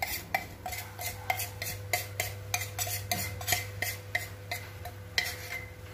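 Metal spoon knocking and scraping against a plastic bowl, about three sharp taps a second, as dried anchovies are shaken out into a wok, over a low steady hum.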